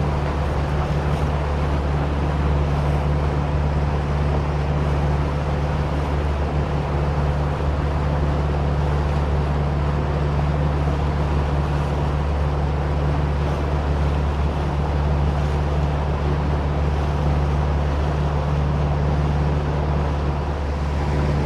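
A boat's motor runs at a steady, unchanging pitch, with a low drone under an even hiss of wind and water.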